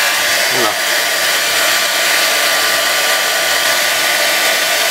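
Handheld hair dryer running steadily on its hot, high setting, a constant rush of air with a thin steady whine in it.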